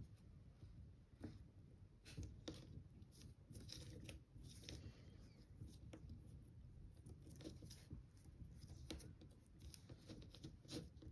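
Near silence, with faint, scattered soft rubs and taps of fingers pinching and smoothing air-dry clay on a work surface.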